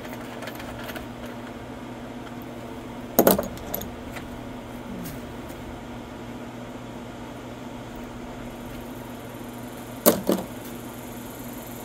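Small single-cylinder engine of a Craftsman push mower running with a steady hum, the mower whose engine struggles to keep running or idle. Two sharp metallic clanks break in, about 3 seconds in and again about 10 seconds in.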